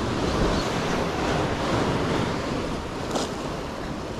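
Steady rushing noise of sea surf and wind buffeting the microphone, with one brief click about three seconds in.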